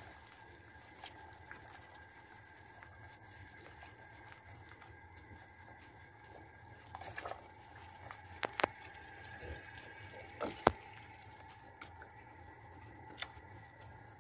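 Stockpot of water boiling quietly with black-chicken pieces just put in: a low bubbling hiss with a faint steady tone. A handful of sharp clicks and taps come in the second half.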